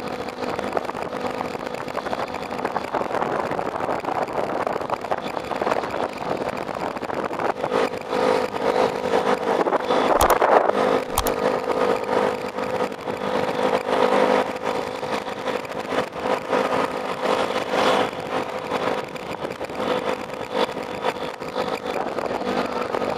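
A vehicle engine running at a steady pitch under a rushing noise, with two sharp clicks about ten seconds in.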